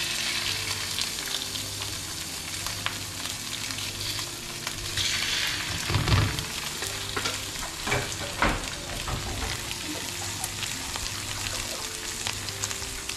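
Raw white fish fillets sizzling and crackling in hot oil in a stainless steel frying pan as they are laid in skin side down to sear. A few sharp thumps stand out about six and eight and a half seconds in.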